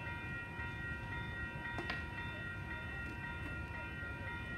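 A railroad warning bell ringing steadily, about two strokes a second, as a train approaches the station.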